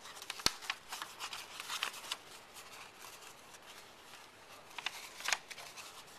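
Sheet of paper being folded and creased by hand into a paper airplane, crinkling and crackling, with sharper cracks about half a second in and again about five seconds in.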